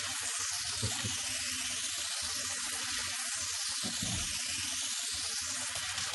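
Bathroom sink tap running, a thin stream of water falling steadily into the basin.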